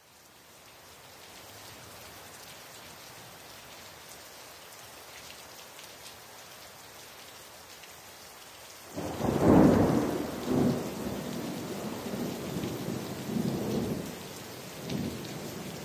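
Wind and sea noise aboard a sailboat in rough weather: a steady hiss, then from about nine seconds in strong gusts buffeting the microphone in loud, rumbling surges that ease off near the end.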